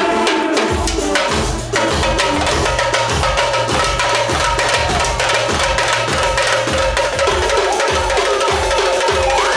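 Live Balkan dance music: a large double-headed drum (tapan) beaten in a steady, driving rhythm, with a clarinet playing a winding melody over it.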